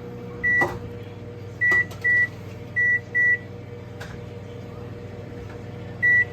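Microwave oven running with a steady hum while its keypad gives short, high beeps as buttons are pressed to add cooking time: five beeps in the first three and a half seconds, then one more near the end.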